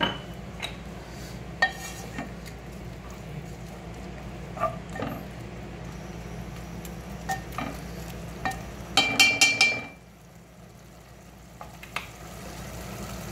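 A wooden spoon stirring urad dal in an aluminium pot, with scattered light knocks against the pot. About nine seconds in comes a quick run of loud, ringing metallic clanks lasting about a second.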